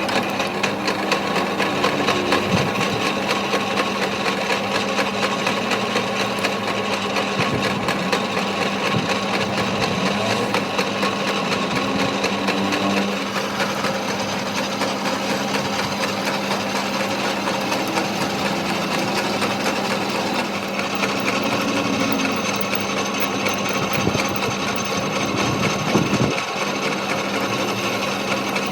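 A workshop machine or power tool running steadily, with a fast, even rattle over a constant hum.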